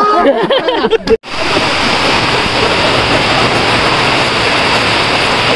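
Heavy rain pouring down, a steady hiss that begins abruptly about a second in, after a brief burst of people's voices.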